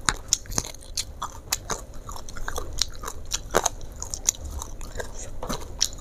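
Close-miked chewing of a mouthful of crispy fried garlic chicken, with irregular crisp crunches several times a second.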